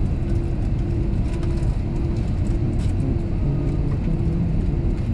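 Airliner cabin noise while taxiing: the jet engines at low power and the wheels rolling over the taxiway make a steady low rumble with a hum running through it.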